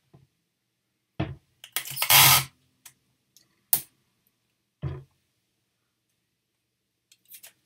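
Sticky tape pulled off its roll in one short, loud rasp about two seconds in, with a few knocks and a sharp click from handling before and after.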